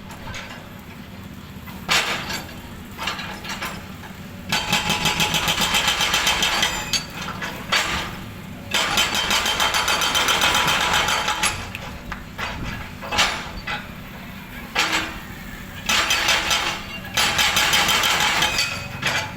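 Hydraulic jackhammer hammering in several bursts of rapid, evenly spaced blows, the longest a few seconds, with a steady engine hum running underneath and between them.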